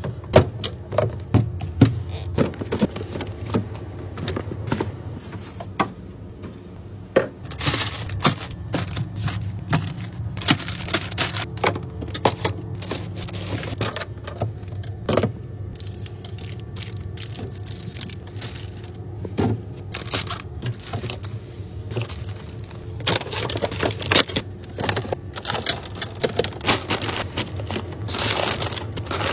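Groceries and containers being handled and set onto fridge shelves: a busy run of clicks, knocks and light clatter, thicker in a few stretches, over a steady low hum.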